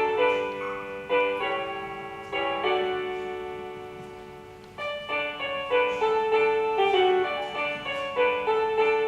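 Background music of piano-like keyboard notes and chords, each struck and left to ring. About halfway through, one chord fades out for a couple of seconds before the notes pick up again.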